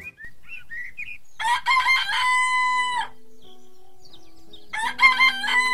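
Rooster crowing cock-a-doodle-doo twice, each crow ending on a long held note, with a few short bird chirps before the first crow and soft background music underneath.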